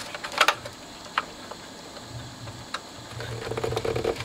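A few light clicks and taps from fingers working an aerial cable plug onto its socket inside a cassette boom box's plastic casing. A low steady hum comes in during the second half.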